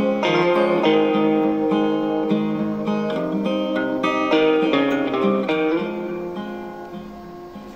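Plucked guitar music played clean and undistorted through a small 12 V single-PCL82 valve amplifier and its built-in 3 W speaker. The music fades down over the last couple of seconds as the amplifier's volume knob is turned down.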